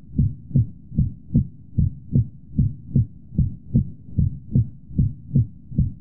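Normal heart sounds heard through a stethoscope at the right upper sternal border: a steady lub-dub of first and second heart sounds, about 75 beats a minute. Played as the normal comparison for aortic regurgitation, without the diastolic murmur.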